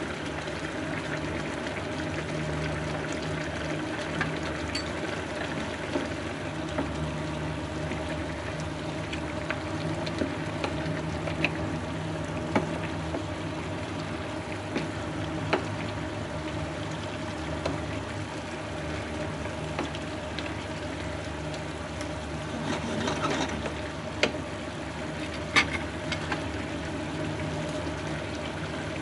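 Daikon and pork simmering in a spicy sauce in a frying pan: the liquid bubbles steadily with scattered sharp pops and clicks, over a steady low hum.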